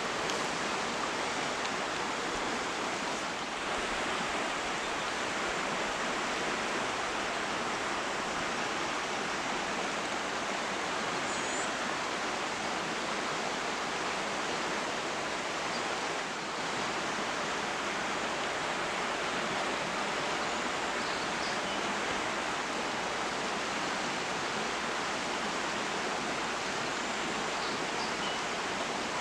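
Steady rush of running water from a creek, even and unbroken.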